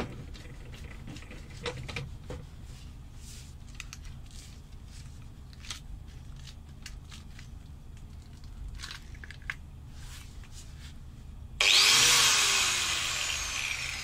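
Light clicks and scrapes of a wire cup brush being handled and threaded onto an angle grinder's spindle. About three-quarters of the way through, the grinder switches on with the crimped copper-wire cup brush spinning free: a sudden loud start that then fades with a falling pitch.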